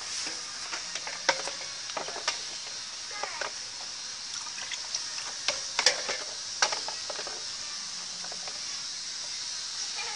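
Sharp plastic clicks and knocks of PVC pipe and fittings being handled and pushed together, over a steady high hiss.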